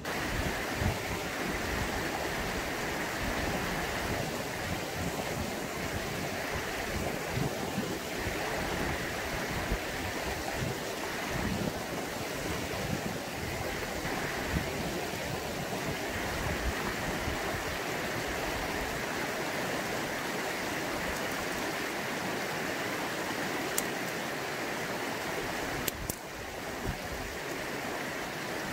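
Mountain stream rushing steadily close by, with two or three brief sharp clicks near the end.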